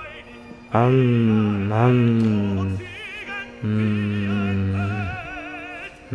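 Background music of slow, sustained singing with vibrato; a higher wavering line joins about three seconds in.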